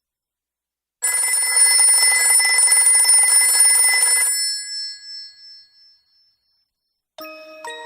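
A bell rings rapidly, like an old telephone bell, starting suddenly about a second in, lasting about three seconds and then dying away. Near the end, electronic keyboard notes start a melody.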